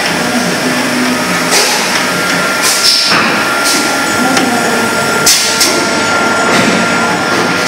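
JWM450 injection blow molding machine running through its cycle: a steady mechanical noise with a faint steady whine, broken by several short, sharp hisses and clacks at irregular moments as the mold and core rods move.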